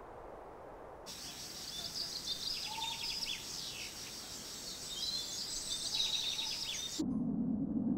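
Field ambience of birds chirping and insects trilling: a dense, high layer of short calls and rapid trills that starts abruptly about a second in and cuts off sharply about seven seconds in. At that cut it gives way to a steady low rumble.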